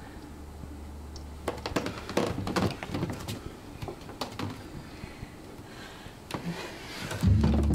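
A handful of sharp knocks and thumps of actors' feet on a stage floor as they climb down and jump. Music comes in loudly near the end.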